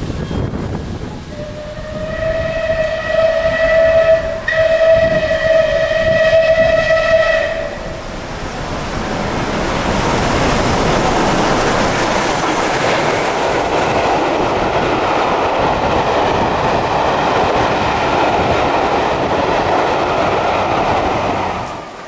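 Steam locomotive 34046 Braunton, a Bulleid West Country class Pacific, sounding its whistle in two blasts of about three seconds each as it approaches. It then runs through at speed with its train, a steady rush of locomotive and carriages that dies away near the end.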